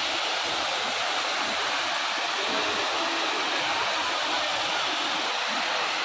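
Large waterfall cascading down stepped rock ledges, giving a steady rushing of falling water.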